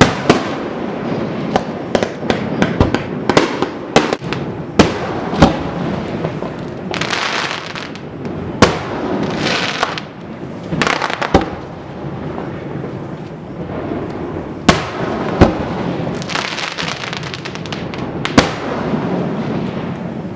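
Fireworks display: aerial shells going off in a rapid series of sharp bangs, with stretches of crackling hiss between them.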